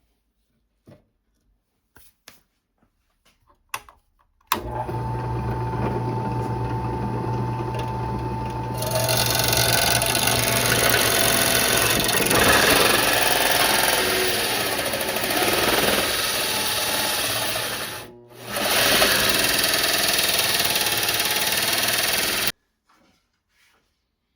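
Electric drill running with its bit working into the sheet metal of a steel toolbox. The motor starts suddenly and runs steadily, growing louder and rougher as the bit bites. It stops briefly, starts again and then cuts off.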